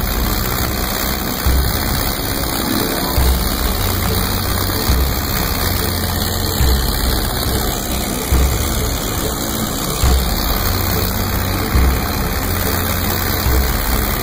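Fishing boat's engine running under way, heard through heavy wind and water noise, with a low thump recurring about every second and a half to two seconds.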